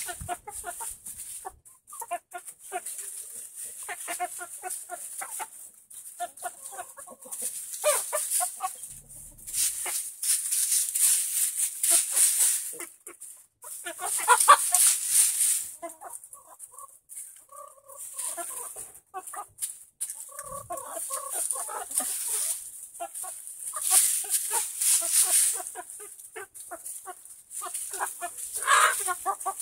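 Several hens clucking in many short, low calls while scratching and pecking through wood chips, with a high hiss coming and going in bursts.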